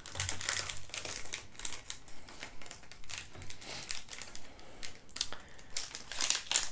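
A Paqui One Chip Challenge chip pouch crinkling as it is handled and pulled open by hand, with irregular crackles throughout that grow a little louder near the end.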